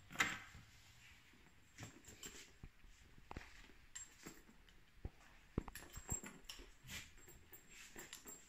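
Faint scattered clicks and knocks. The loudest comes just at the start as a door with keys in its lock is pushed open, and the rest are footsteps and handling noise moving through small tiled rooms.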